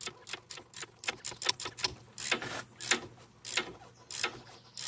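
Hand ratchet wrench clicking in quick runs of strokes while loosening a bolt, with a few longer rasping strokes in the second half.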